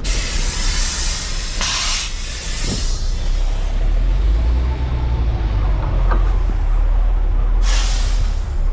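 A heavy truck's diesel engine idles with a steady low rumble, under loud bursts of compressed-air hiss from the truck's air brake system. One long burst runs over the first two seconds, and a short sharp one comes near the end.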